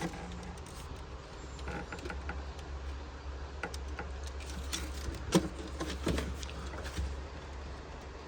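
Scattered light clicks and knocks from handling the car's wiring harness and fuse box, over a low steady hum.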